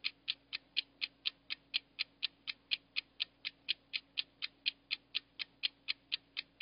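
Stopwatch ticking with fast, even ticks at about four a second, timing a test.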